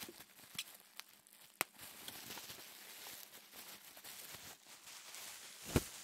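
Plastic bubble wrap crinkling under the fingers as its bubbles are squeezed and popped: a few small sharp snaps in the first two seconds and one louder pop near the end.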